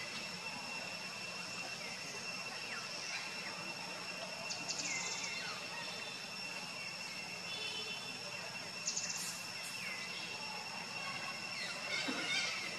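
Forest ambience: a steady, high-pitched insect drone, with two short rapid chirping trills and a few faint short calls.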